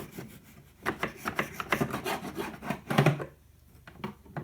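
A knife saws back and forth through a loaf of home-baked bread held in a bamboo slicing guide, making a quick run of rasping strokes. The strokes start about a second in and end with a heavier stroke around three seconds, followed by a couple of light knocks near the end.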